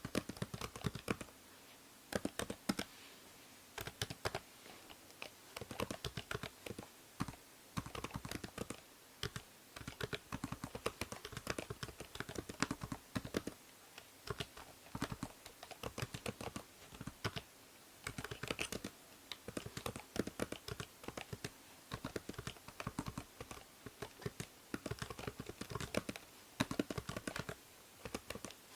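Typing on a computer keyboard, clicking keystrokes in quick runs with brief pauses between them, over a steady faint hiss from the binaural microphone.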